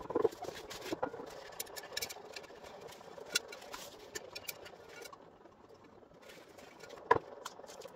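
A paper tissue rubbing against a clear plastic container as it is wiped out, with scattered small clicks and a few light knocks of the container being handled, the loudest near the end.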